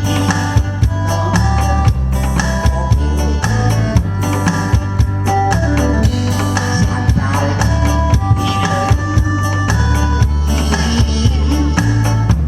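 Instrumental trot backing music playing loud, with a steady drum-kit beat, a strong bass line and held melody notes, and no singing.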